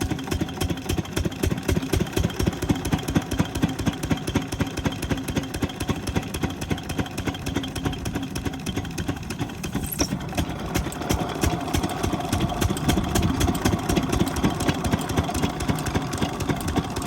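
12 hp single-cylinder diesel pump-set engine running steadily with a rapid, even firing beat.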